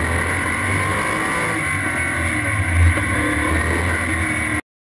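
Race car engine running at a fairly steady pitch at speed, heard from on board; the sound cuts off abruptly near the end.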